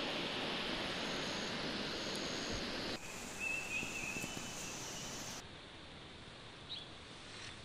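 Pine-forest ambience: a steady rustling hiss of wind in the trees, with a few short bird chirps in the second half. The background noise drops abruptly about three seconds in and again about two seconds later.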